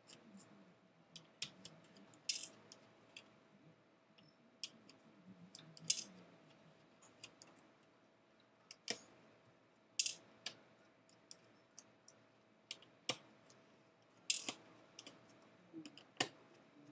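Irregular small clicks and taps of a precision screwdriver and tiny screws as the screws are taken out of a MacBook's display bezel frame, a few clicks louder than the rest, over a faint steady hum.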